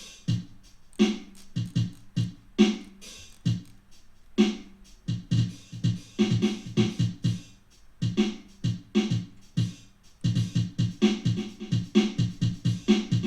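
Drum-machine beat from a Zoom G2 multi-effects pedal playing one of its built-in drum patterns: kick, snare and hi-hat in a steady groove, with more hits from about six seconds in.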